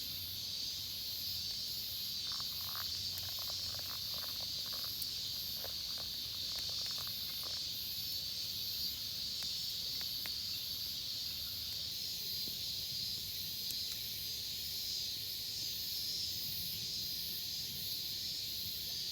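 Insects chirping in a steady high-pitched chorus, with an even pulsing rhythm above it and a few faint short sounds in the first half.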